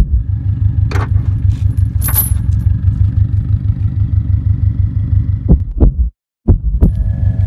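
A vehicle engine idling with a steady, evenly pulsing low throb, with metal chain links clinking a few times. The sound cuts out briefly near the end.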